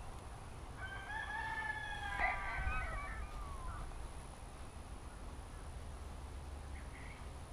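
A rooster crowing once, a single long call of about three seconds that falls in pitch at the end.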